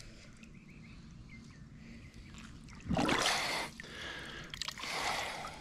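Water splashing: a short, loud splash about three seconds in, then softer sloshing a second or so later, over faint background hiss.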